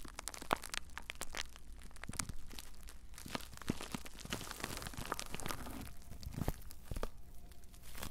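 Bubble wrap squeezed and crumpled in the hands close to the microphone: a continuous irregular crackling, studded with sharp clicks.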